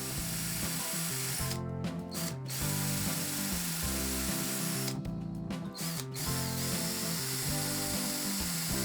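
A power tool running in spells, with a mechanical ratcheting quality, stopping briefly about two seconds in and again about five seconds in, over background music with a stepping bass line.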